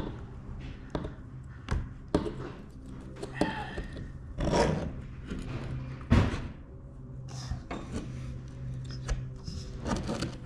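Hand-held windshield installation tool levering a rubber gasket around a flat safety-glass pane: irregular knocks, taps and short rubbing scrapes as the rubber is pulled away so the glass settles into its channel, with the loudest knock about six seconds in.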